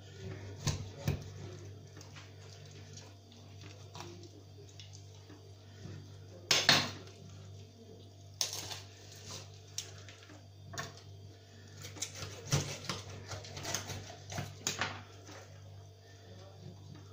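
Kitchen knife cutting and scraping through a carp's flesh and bones on a granite countertop, with clicks and knocks of the blade and fish against the stone. The loudest clatter comes about six and a half seconds in, and a quick run of scraping clicks follows in the later seconds, over a steady low hum.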